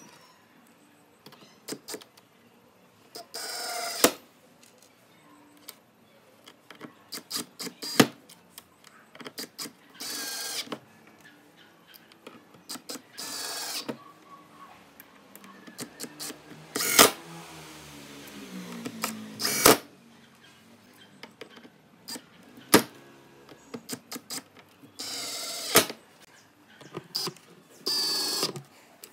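Cordless drill driving small screws through steel hinges into a pine board, in short runs of about a second each, about seven in all. Between runs come sharp clicks and knocks as the drill and the hardware are handled and set down on the wood.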